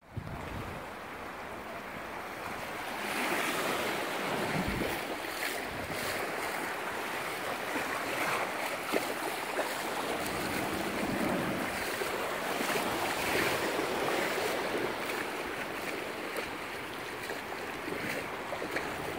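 Small waves washing up over sand and surging through shallow water: a steady wash that swells and eases every few seconds.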